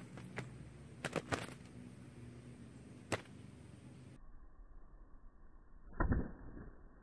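Spotted doves fighting, striking at each other with their wings: sharp wing claps, a quick cluster in the first second and a half and a single one about three seconds in, then a heavier burst of wing-beating near six seconds.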